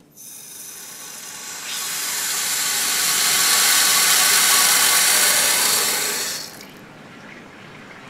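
Water rushing through the cold-water inlet valve into a drained gas water heater tank as it refills. The hissing rush swells about two seconds in and drops to a quieter steady flow near the end.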